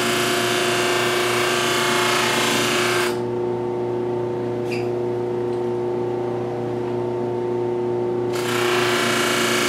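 Baldor bench buffer motor running steadily while a stainless steel knife blade's bevels are pressed against the spinning buffing wheel, making a rushing hiss over the motor hum. The hiss stops about three seconds in as the blade comes off the wheel, leaving only the motor, and starts again near the end as the blade goes back on.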